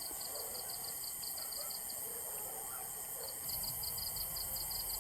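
Insects chirping in a fast, even pulse of about seven chirps a second over a steady high hiss. The chirping stops about two seconds in and resumes a little over a second later.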